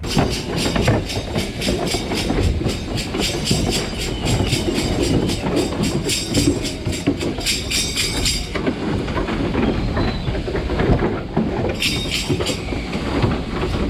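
Sheep-shearing machinery running with a steady, rhythmic mechanical clatter. The fast high-pitched rattle drops away about eight and a half seconds in and returns briefly near the end.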